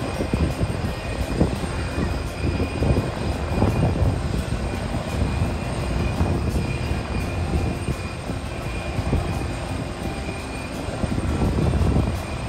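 Jet airliner engines at an airport: a low, fluctuating rumble with a thin steady high whine over it.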